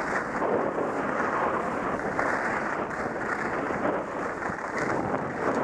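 Steady rush of wind on an action camera's microphone while skiing downhill, mixed with skis scraping over packed, groomed snow.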